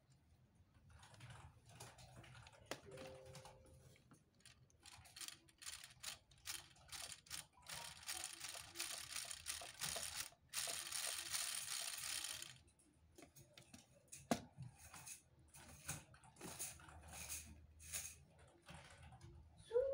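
Plastic LEGO Technic gears and mechanisms clicking and rattling as they are worked by hand, with a dense run of rapid clicking in the middle and a few sharper knocks of parts later on.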